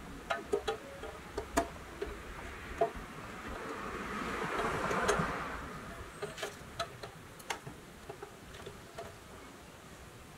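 Small light clicks and taps as the back door of a restored pressed-steel Tonka toy camper shell is handled and fitted in place, with a soft rubbing swell about four to five seconds in.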